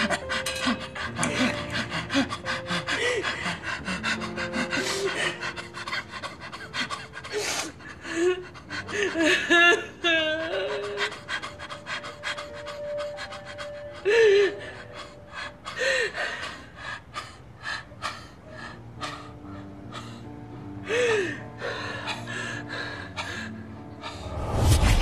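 A woman sobbing and gasping for breath, with broken wavering cries, over soft sustained background music. A deep low boom swells up near the end.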